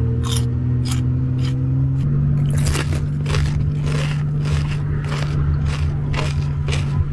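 Tuk-tuk engine running steadily while riding, a low hum that steps up in pitch about two seconds in, with short clicks or rattles about twice a second.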